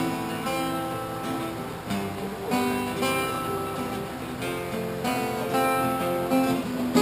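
Acoustic guitar strumming a run of chords, with no singing yet.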